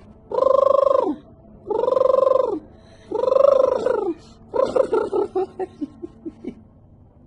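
Bird call: three long, even hooting notes, then a quick run of short notes that falls in pitch and fades out.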